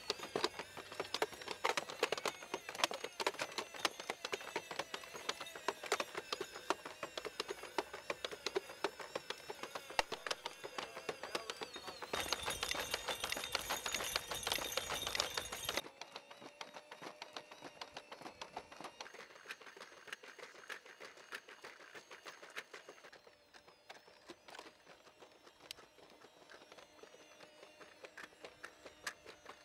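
Boston Dynamics Spot quadruped robot walking: the steady whine of its hydraulic power unit with rapid clicking and tapping from its feet and leg actuators, quieter in the second half.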